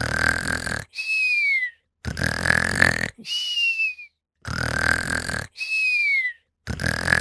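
Sleeping bichon dog snoring in a regular rhythm, about one breath every two seconds. Each rough, rattling snore is followed by a thin whistle that falls in pitch, giving about three full snore-and-whistle cycles.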